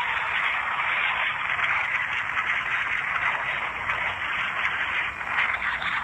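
A recording of a passing train played back through a small LG feature phone's speaker: a steady, thin, tinny rushing noise with almost no bass.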